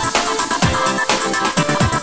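Electronic dance music with a steady, pounding kick-drum beat under synth melody lines.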